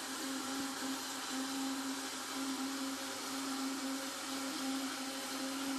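Electric kitchen blender running steadily, churning a liquid mix of cough candy sweets and hot water: a steady motor hum over an even whirring hiss.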